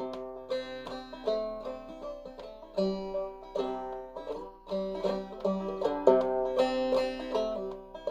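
Five-string banjo played clawhammer style in open eCGCD tuning (double C with the fifth string lowered to E), picking out a jaunty fiddle-tune melody over a steady bouncing rhythm.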